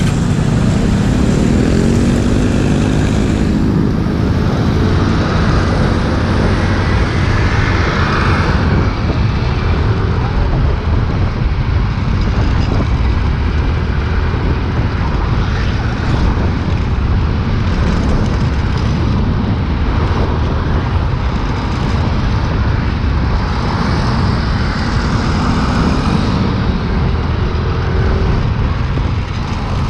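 Wind rushing over the microphone of a moving scooter, with its small engine running underneath. The engine pitch rises as it accelerates at the start, and again briefly later on.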